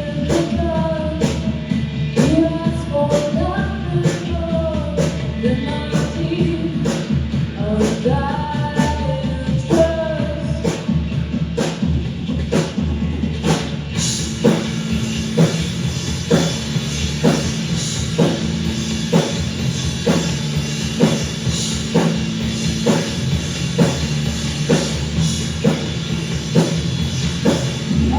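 Rock band playing: drums keep a steady beat under bass while a bending melodic lead line sings out. About halfway through, the sound thickens into a fuller, cymbal-washed section.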